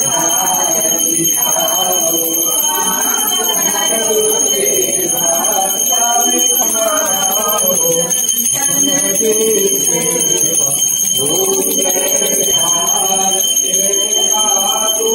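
A puja bell ringing steadily, its high tones unbroken throughout, over voices chanting mantras.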